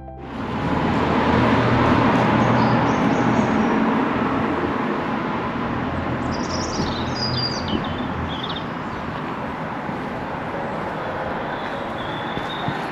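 Small birds chirping, about six to nine seconds in, over a loud steady rushing noise of outdoor background ambience.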